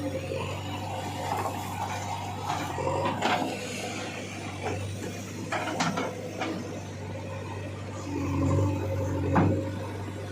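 Backhoe loader at work: a steady low engine hum with several sharp clanks and knocks, loudest about three, six and nine and a half seconds in, with wet splashing sounds among them, as of a bucket loading mud.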